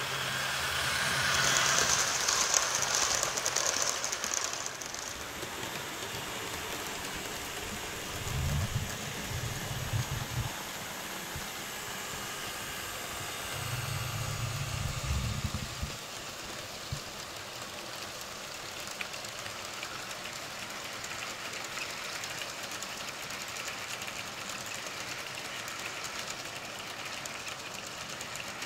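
Model train running on its track: a steady mechanical rattle and hiss, loudest in the first few seconds, with a deeper hum that swells twice around the middle.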